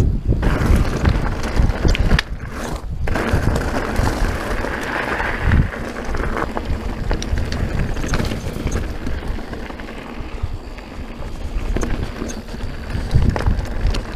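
Mountain bike riding over a rocky gravel trail: tyres crunching on loose stones and the bike rattling over rocks, with wind buffeting the microphone.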